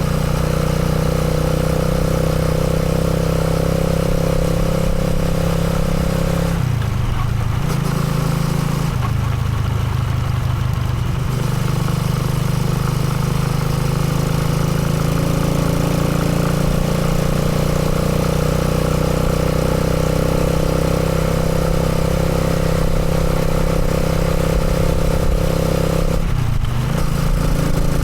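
Motorcycle engine running steadily, its pitch dropping briefly three times: about seven seconds in, again for a couple of seconds soon after, and shortly before the end.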